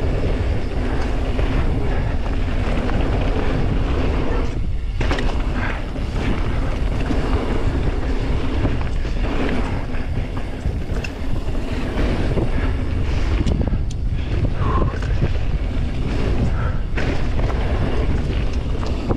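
Mountain bike descending a dirt flow trail at speed: wind rushing over the camera's microphone, with tyres rolling on packed dirt and scattered knocks and rattles from the bike over bumps.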